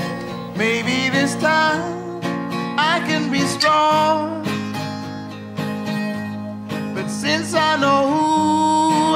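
Background music: a song with plucked guitar and a singing voice.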